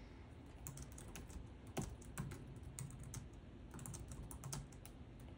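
Faint, irregular light clicks and taps, one a little louder about two seconds in.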